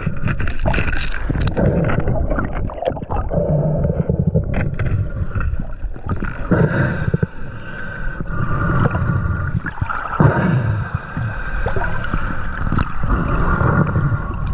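Water gurgling and sloshing around a mask-mounted GoPro as the diver swims, with irregular surges of turbulence.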